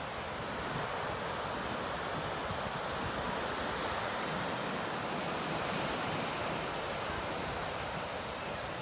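Ocean surf breaking and washing over a rocky reef shoreline: a steady rush that swells slightly about two-thirds of the way through.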